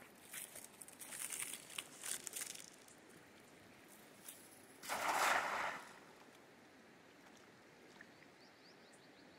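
Cast net being gathered and thrown, its mesh and weights rustling for the first couple of seconds. About five seconds in the net lands on the river with a splash lasting about a second, the loudest sound.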